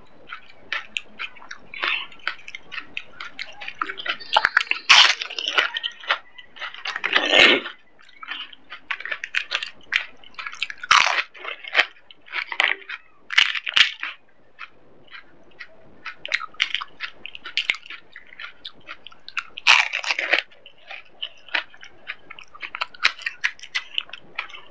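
Crisp, hollow fried pani puri shells crunching and being chewed, eaten one after another close to the microphone. A rapid run of sharp crunches and mouth sounds, with a few louder, longer crunches scattered through.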